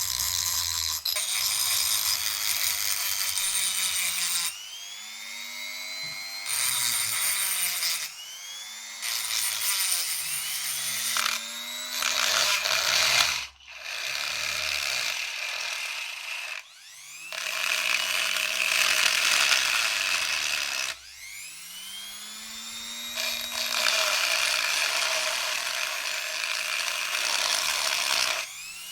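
A power tool working on metal, its sound coming and going in loud stretches of a few seconds between quieter spells, the pitch sweeping up and down as it runs.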